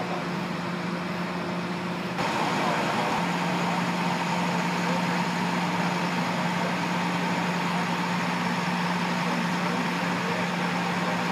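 Fire engine idling: a steady engine hum that gets louder about two seconds in.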